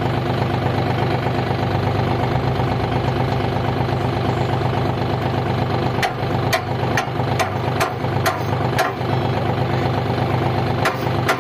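John Deere tractor's diesel engine idling steadily. From about six seconds in, a brick is struck several times against the rotavator's hitch, a run of sharp knocks, to drive home a new linkage pin that is tight; two more knocks come near the end.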